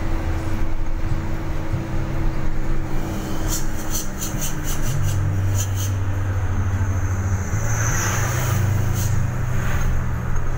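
Car engine and road noise heard from inside the cabin while driving, a steady low drone that steps in pitch a few times. A run of sharp clicks comes a few seconds in, and a brief hiss with a high tone near the end as an oncoming dump truck passes.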